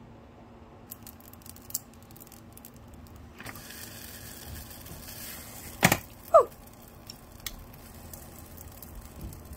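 Rice ramen noodles hissing on the hot plates of a Dash mini waffle maker, with light clicks of wooden chopsticks beforehand. Near the end of the hiss comes a sharp clack, then a short falling squeak.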